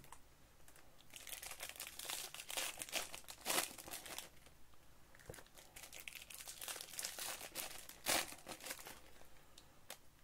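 Crinkling of plastic and foil Topps baseball card pack wrappers being handled and opened, in irregular crackles with louder bursts about a third of the way in and near the end.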